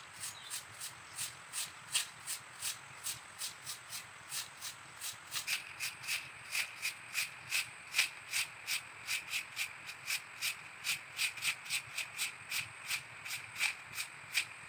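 Soft grass broom sweeping dry leaves across an asphalt road: quick, even swishing strokes, about three a second.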